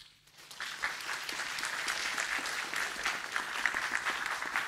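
Audience applauding: many people clapping, swelling within the first half second and then holding steady.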